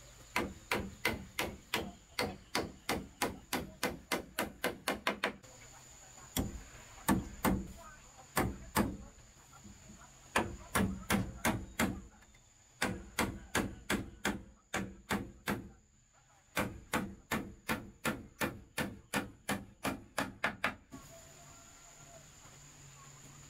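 Hammer driving nails into a wooden cabinet frame: runs of sharp blows, each run quickening toward its end, with short pauses between runs, then stopping near the end.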